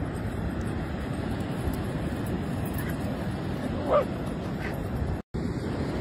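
A dog gives a short bark about four seconds in, with a couple of fainter yips around it, over the steady wash of ocean surf and wind. The sound cuts out for a moment near the end.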